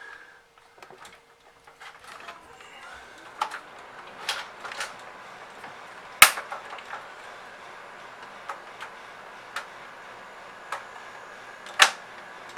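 Irregular clicks and knocks of Hoover vacuum cleaner parts being handled and fitted back together during reassembly, with two louder sharp snaps about six and twelve seconds in.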